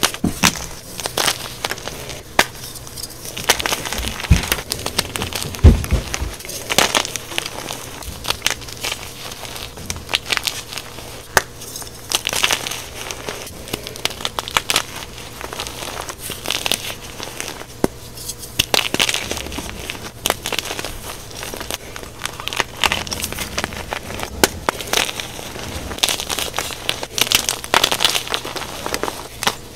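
Soft gym chalk blocks crunching and crumbling as bare hands squeeze and crush them into powder, a dense crackling full of crisp little snaps. A couple of low thuds come about four and six seconds in.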